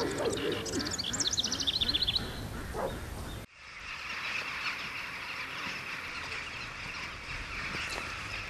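Marshland ambience: a small bird's quick trill, falling in pitch, over low waterfowl calls. About three and a half seconds in it cuts off abruptly to a steady hiss.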